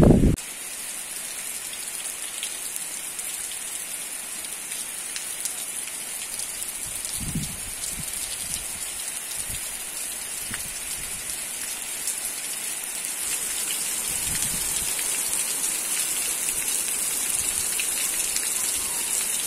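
Heavy rain pouring steadily onto a bare dirt yard: a dense, even hiss that grows a little louder in the second half.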